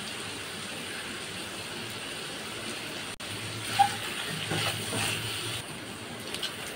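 Mutton liver pieces frying dry in a wok with a steady low sizzle, then a spatula stirring and scraping them around the pan from about halfway through.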